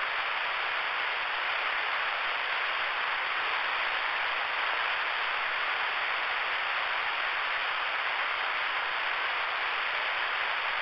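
Steady hiss of static from a ten-meter radio receiver with the squelch open, heard between transmissions.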